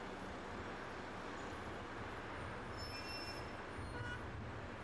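Steady low rumble and hiss of outdoor traffic-type background noise, with a few faint high tones about three and four seconds in.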